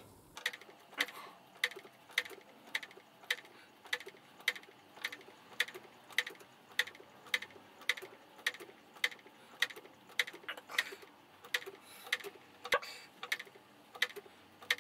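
Clock-ticking sound effect laid over sped-up footage: crisp, evenly spaced ticks, a little under two a second.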